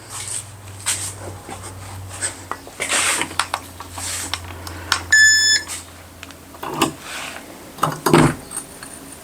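Scuffling and handling noises, with one short electronic beep from a digital scale a little over halfway through. Two dull thuds follow near the end as the broken piece of concrete block is set down.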